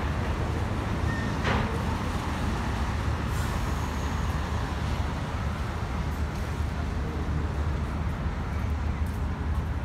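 Steady low rumble of city traffic noise, with no single event standing out.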